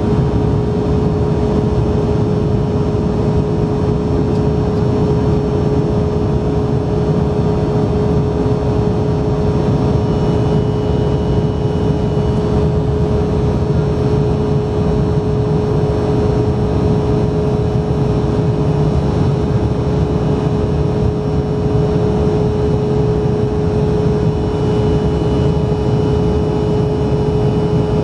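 Cabin noise inside an Embraer E175 airliner climbing out after takeoff: the steady drone of its GE CF34 turbofan engines, a constant hum over a deep rumble, unchanging throughout.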